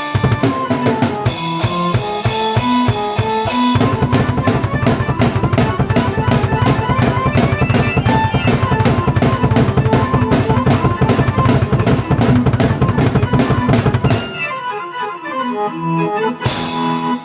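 Drum kit and keyboard played together: keyboard notes over a fast, steady drum beat. The drums drop out about three-quarters of the way through, leaving the keyboard alone, and then a cymbal crash comes in near the end.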